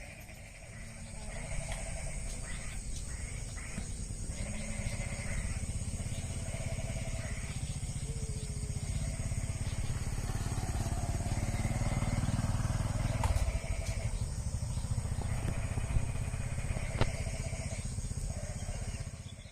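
Engine running with a steady low rumble that grows louder until about thirteen seconds in, then eases. Over it are short repeated chirps and a constant high-pitched drone.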